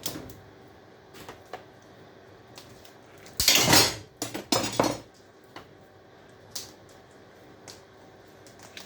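Copper pipe being worked by hand: scattered metallic clinks and knocks, with two longer, louder bursts of clatter and scraping in the middle.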